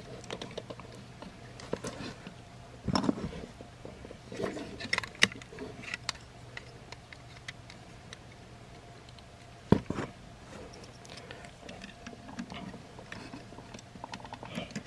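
Maketoys EX-11 Meteor transforming robot figure being handled and transformed: scattered clicks and small knocks of its parts and joints being moved and pegged into place. The loudest clicks come about three seconds in and about ten seconds in.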